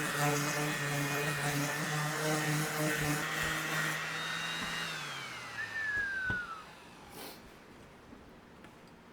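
Electric sander running steadily with the hiss of sanding, then switched off about five seconds in, its motor winding down in a falling whine over a second or two.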